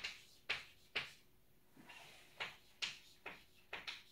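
Chalk writing on a blackboard: a string of short, sharp taps and scratches, about nine strokes irregularly spaced, with a pause of about a second near the middle.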